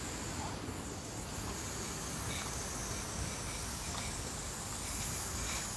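Outdoor park ambience: a steady hiss with a faint high-pitched band running through it, and a few faint, brief high chirps.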